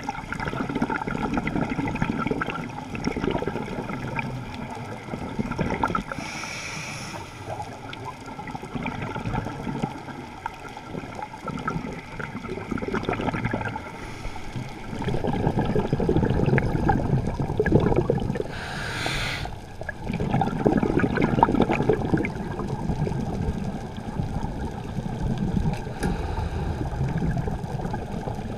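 Scuba diver breathing through a regulator underwater: long gurgling rushes of exhaled bubbles that swell and fade every few seconds, with a short hiss of inhalation about six seconds in and again near nineteen seconds.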